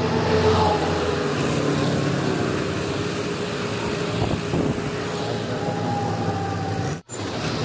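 Engine of an Escorts Hydra 14 mobile crane running steadily while it works its hook, lowering concrete culvert pipes. The sound drops out for an instant near the end.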